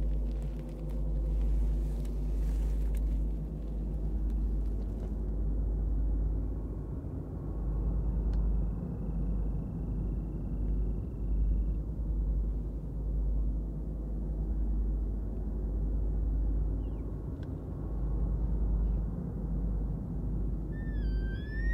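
A deep, steady rumble runs throughout. Near the end a bull elk begins to bugle, a rising whistled call.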